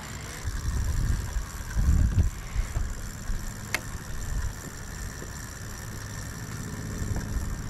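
Wind buffeting the microphone in uneven low gusts, strongest in the first couple of seconds, with a single sharp click about four seconds in.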